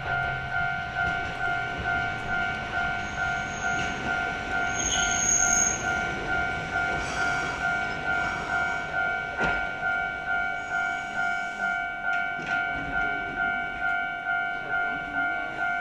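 Japanese level-crossing warning bell ringing its steady two-tone "kan kan", just under two strokes a second. A brief shrill high-pitched sound cuts in about five seconds in, and a single knock comes near the middle.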